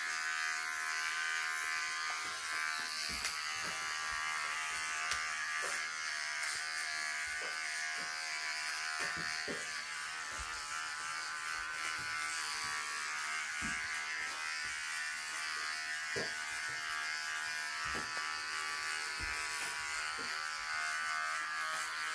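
Electric hair clippers buzzing steadily as they cut short hair for a buzz cut, with a few soft knocks scattered through.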